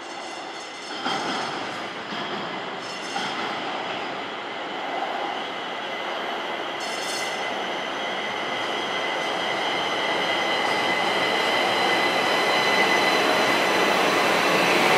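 Pittsburgh light rail train pulling into an underground station, its running noise growing steadily louder as it nears. A steady high-pitched wheel squeal builds over the second half, and there are a few short clanks about one, three and seven seconds in.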